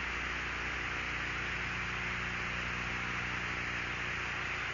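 Steady radio static hiss over a low mains hum from an open audio feed between radio calls.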